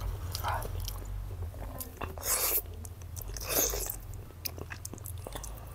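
Close-miked chewing and biting of food, with wet mouth clicks and three louder spells of chewing, about half a second, two seconds and three and a half seconds in.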